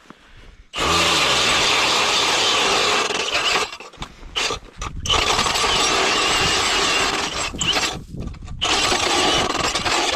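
Battery-powered electric ice auger drilling a hole through lake ice: the motor spins up about a second in and the bit churns through the ice, stopping briefly twice and starting again.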